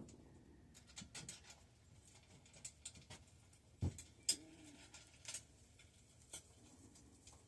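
Scattered light metallic clicks and clinks as tools and small bicycle parts are handled, with a dull knock about four seconds in followed by a sharp click.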